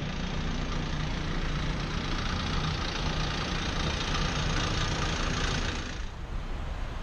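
Street traffic noise: vehicle engines running, with a steady hiss that drops away abruptly about six seconds in.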